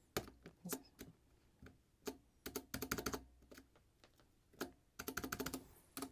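Keys of a mechanical keyboard with Kailh switches being pressed: a few single clicks, then two quick runs of keystrokes, the second near the end.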